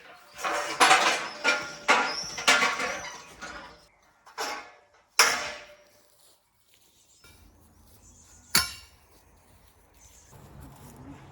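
Hammer blows with metallic clinks and ringing: a quick run of strikes over the first few seconds, two more single strikes, then one sharp strike later on. A low steady hum comes in near the end.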